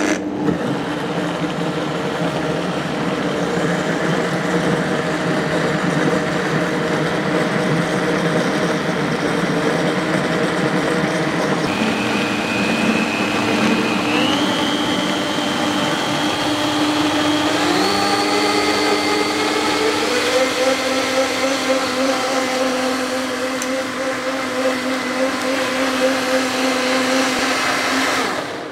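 Blendtec 650 blender with a Wildside jar running, mixing a hot, thick sunflower-seed cheese base after agar agar has been added, until it is smooth. The motor pitch steps up about halfway through and again a few seconds later, and the motor stops at the very end.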